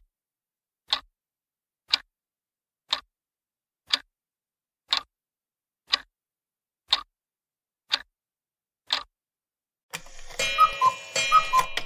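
Quiz countdown-timer sound effect: clock ticks, one a second, about ten in all. About ten seconds in, a louder short chiming jingle of several bright notes marks the correct answer being revealed.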